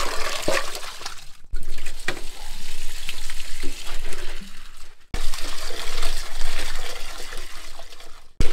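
Water running from a pipe and splashing into a metal basin as leaves are rinsed by hand in a colander, with a few light knocks of pot and basin. The running water breaks off briefly twice.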